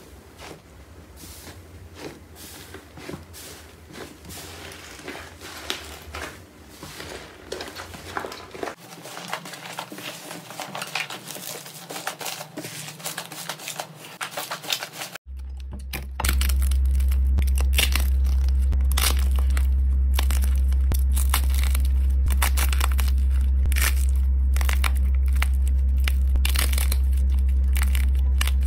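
Dried-crust 'iceberg' slime crackling and tearing as fingers press and pull it, a dense run of small crisp crackles. After a cut about halfway through, sharper crunchy crackling as hands break up another crust-covered slime, over a steady low hum.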